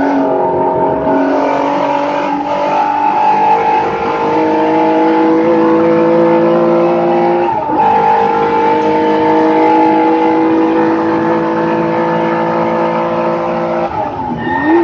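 Race car engine heard from inside the cockpit, accelerating: its note climbs steadily, drops sharply with an upshift about halfway through, and climbs again. Near the end the note falls as the car comes off the throttle.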